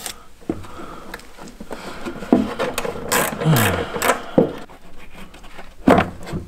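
Scattered knocks, clicks and scrapes of hands and a tool working a plastic VW T3 coolant expansion tank into its mount in the wheel arch while its screw is tightened. A brief low falling hum from a person comes about three and a half seconds in.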